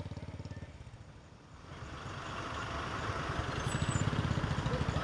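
Motorcycle engine running as the bike passes close by, fading away about a second in; then a vehicle's engine and tyre noise grow steadily louder toward the end as another vehicle approaches.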